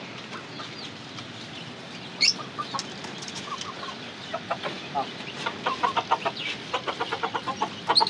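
Chickens and chicks calling: a single rising call, then from about halfway through a quickening run of short clucks and peeps.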